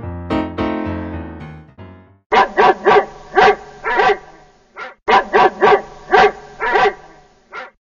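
Piano notes fade out, then a dog barks repeatedly in two quick runs of about half a dozen barks each.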